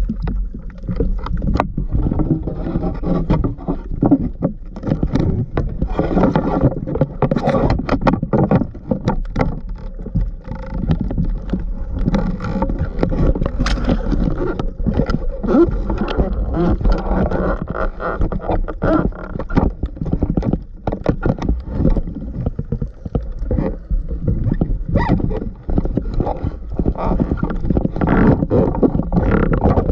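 Underwater sound picked up through a camera housing while a diver swims: a steady low rumble of moving water with dense, irregular crackling clicks throughout.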